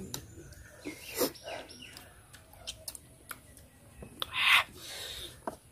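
Eating sounds: metal spoons clicking and scraping on green mango, with mouth noises, and a short, loud hissing sound about four seconds in. Birds chirp in the background.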